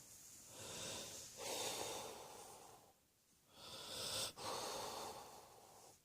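A person breathing heavily in long, noisy breaths in and out, about four of them.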